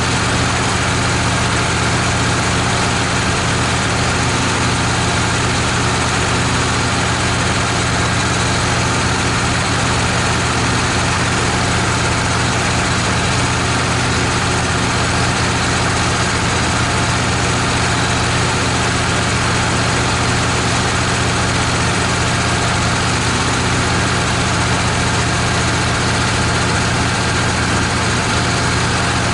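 Wood-Mizer LT15 portable bandsaw mill running steadily and evenly, its engine and band saw making a loud constant drone.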